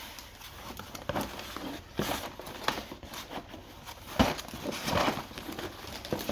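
Rummaging through an opened LEGO box: plastic parts bags and paper rustling, with small knocks and clicks of pieces being handled.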